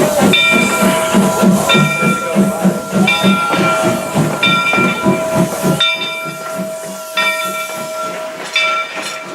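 Steam locomotive's bell ringing steadily, one stroke about every second and a half, over a quick low chuffing that stops about six seconds in.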